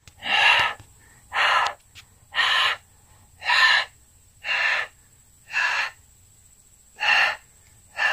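A person breathing heavily close to the microphone: eight loud, breathy breaths about one a second, with a slightly longer pause before the last two.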